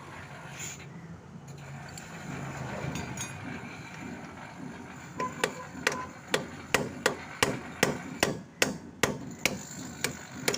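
Hammer tapping a 13 mm socket used as a drift to drive the worn rubber bush out of a Suzuki Access 125 rear shock absorber's mounting eye. About halfway through come a dozen or so sharp metal strikes, a little over two a second.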